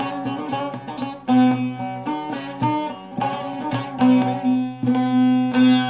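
Bağlama (Turkish long-necked saz) played solo: quick plucked notes over low strings left ringing, with a few louder strummed strokes.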